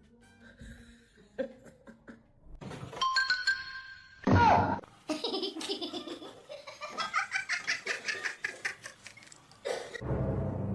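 Quiet at first, then laughter coming in quick repeated bursts from a few seconds in, with one louder burst early on.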